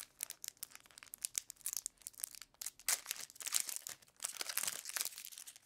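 A Magic: The Gathering booster pack's foil wrapper crinkling and tearing as it is ripped open by hand: a run of short, irregular crackles.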